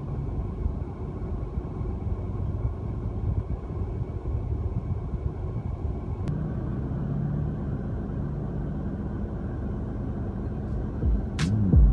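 Car engine and tyre rumble heard from inside the cabin while driving, a steady low drone.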